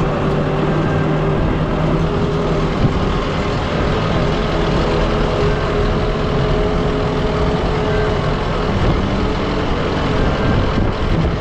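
Tractor engine running steadily, its pitch drifting slightly up and down.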